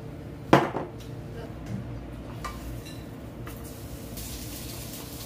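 Kitchenware clattering at a gas stove: one sharp clack about half a second in, then a few light clinks. Near the end, oil starts to sizzle as sliced sweet potato fries in a small frying pan.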